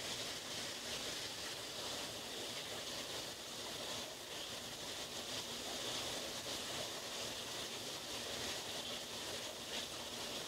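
Steady faint hiss of room tone with no gunshot or other distinct event.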